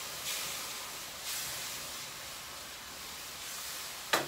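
Hokkien noodles sizzling in a wok on a gas burner, a steady hiss that swells twice in the first second and a half as the pan is worked. A sharp clack near the end.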